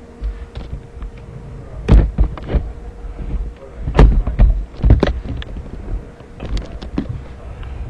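Camera handling noise: an irregular series of loud thumps and knocks with a deep rumble as the camera is touched and adjusted up close, the loudest about two, four and five seconds in.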